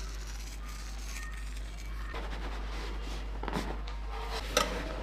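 Light handling and scraping noises with a few knocks and a sharp click near the end, over a steady low hum.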